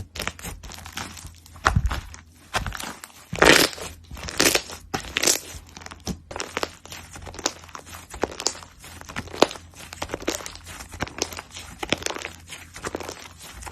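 Slime being squished and pressed by hand, giving a dense run of irregular crackling pops and squelches, loudest about three to five seconds in.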